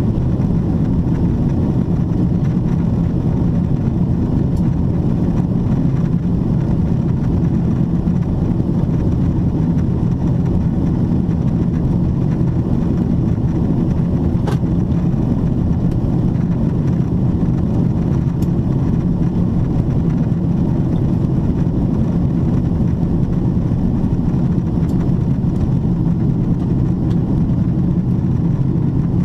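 Steady low roar inside the cabin of a Boeing 777-300ER descending, made by its GE90-115B turbofan engines and the airflow over the fuselage. A faint click about halfway through.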